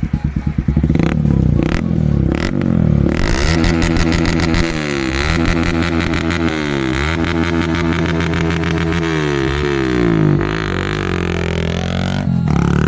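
Motorcycle with a custom double exhaust being revved, the engine note held up high and repeatedly dipping and climbing again, with one long rising rev near the end.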